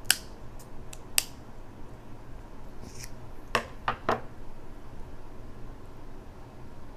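Small scissors snipping through a king crab leg's shell: a few sharp snips and clicks, the loudest two about a second apart near the start, then two more a little past halfway.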